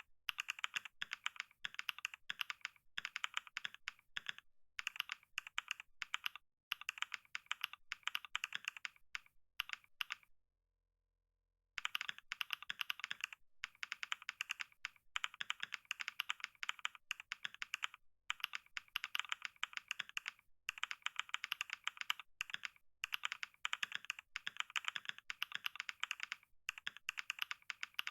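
Fast typing on a computer keyboard: dense runs of rapid keystrokes with brief pauses between them. It stops completely for about a second roughly a third of the way in, then resumes.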